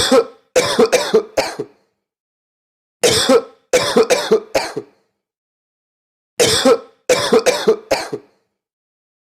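A person coughing in three fits of several quick, harsh coughs each, about three seconds apart.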